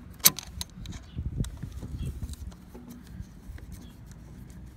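Metal clicks and taps of a socket wrench turning a nut onto a stud on an IZh Jupiter-5 motorcycle engine, with one sharp click about a quarter second in and lighter irregular clicks after.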